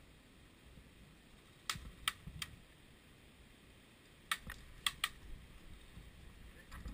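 Airsoft gunfire heard as short, sharp snaps: three about a second and a half in, then three more a little past four seconds, each group spaced a few tenths of a second apart.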